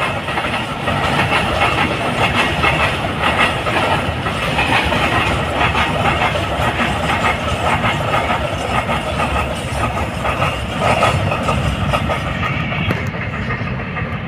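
Open freight wagons of a long freight train rolling past at speed, their wheels clattering over the rail joints in a steady run of knocks. The sound thins out near the end as the last wagons go by.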